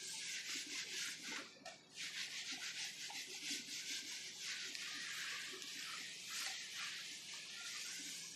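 Whiteboard eraser scrubbing marker writing off a whiteboard, rubbed back and forth in quick strokes, with a short break about two seconds in.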